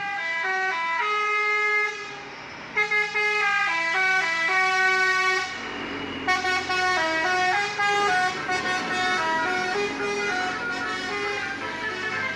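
Indonesian bus 'basuri' telolet horn playing a stepped multi-note melody, loud. One short phrase, a break about two seconds in, a longer phrase, then from about six seconds a busier run of notes.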